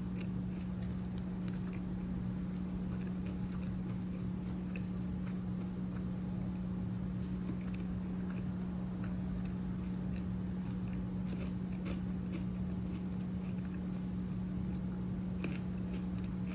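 Close-up chewing and biting of a fried chicken Caesar sandwich on French bread, with scattered small crunchy clicks. A steady low hum runs underneath.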